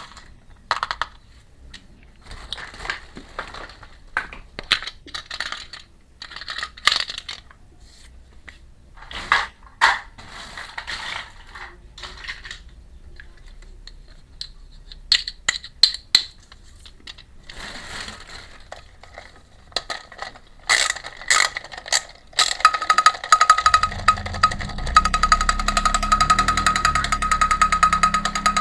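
Small plastic toy pieces and packaging being handled, with light clicks, taps and rustles. About twenty-two seconds in, a louder steady buzz with a strong high tone starts and runs on.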